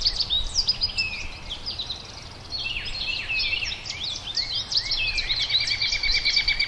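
Songbirds singing together, a dense chorus of overlapping chirps and whistled notes, over a faint steady low rumble.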